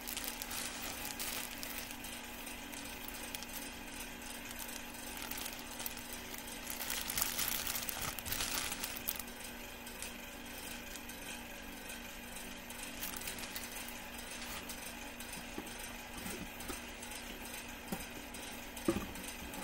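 Clear plastic bag crinkling as it is handled, loudest for a couple of seconds about a third of the way in, over a steady background hum; a couple of short knocks near the end.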